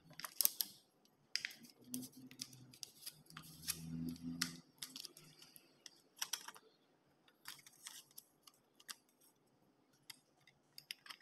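Faint, irregular clicks and crinkles of thin aluminum soda-can sheet and tape being handled and pressed by hand, with a faint low hum around two and four seconds in.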